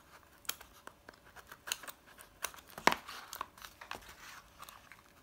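Teal cardboard mailer box being opened by hand: a run of sharp cardboard crackles, scrapes and tearing as the flaps are pulled free, with the loudest snap about three seconds in.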